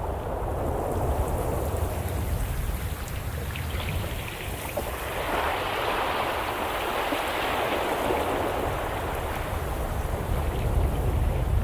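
Steady rushing noise of a nature-sounds ambience, with a deep rumble underneath. The rushing grows louder and brighter about five seconds in, then eases off again.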